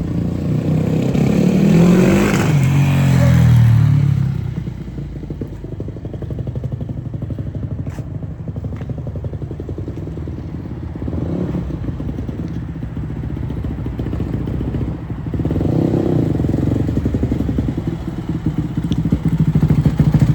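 Freshly rebuilt 2001 Yamaha WR250F's single-cylinder four-stroke engine running under riding. It revs up hard in the first few seconds, runs at lower revs through the middle, then revs up again near the end before dropping away suddenly.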